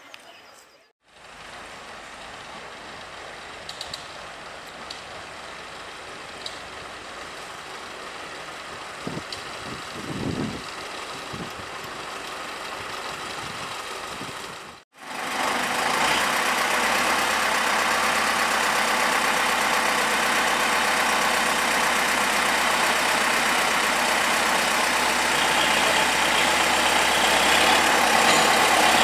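A quieter stretch with a few short knocks, then, after a cut about halfway through, the diesel engine of the 1957 Kö 0451 shunting locomotive running steadily, a little louder near the end.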